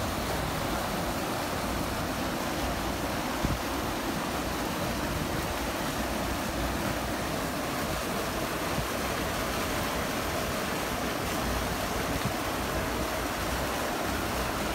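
Water pouring over a low concrete weir in a canal, a steady rushing.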